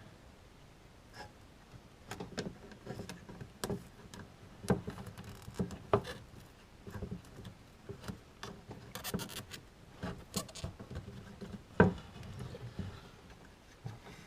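Irregular clicks, taps and rubbing of hands working a plastic dashboard trim panel while sticking Madeleine anti-squeak fabric tape around its edge. A sharper knock comes about twelve seconds in.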